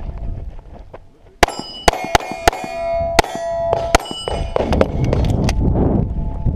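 A string of pistol shots in quick succession at steel targets, the struck steel plates ringing with a metallic clang after the hits. After a brief lull near the start the shots come fast over about two and a half seconds, then a few quieter knocks follow.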